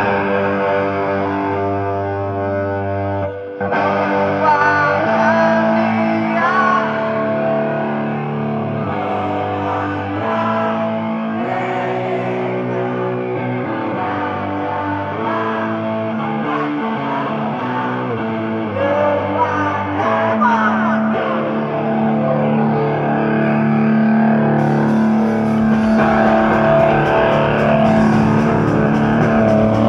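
Punk rock band playing live: distorted electric guitars hold long notes through a PA in an instrumental passage without vocals. Near the end, cymbals join in.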